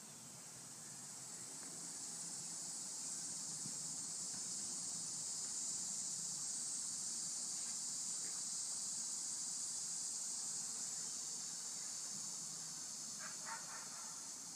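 A steady high-pitched hiss that swells over the first couple of seconds, holds, and eases off near the end, with a faint low hum beneath it and a few faint ticks near the end.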